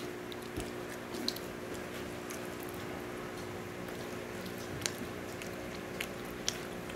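A person chewing food close to the microphone, with scattered wet mouth clicks and smacks over a steady low hum.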